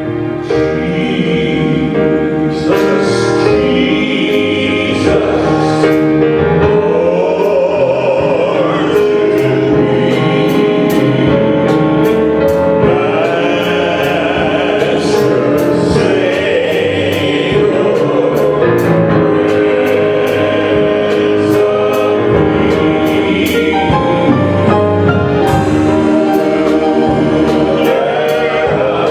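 Gospel-style worship music: a choir singing with instrumental accompaniment and a steady beat.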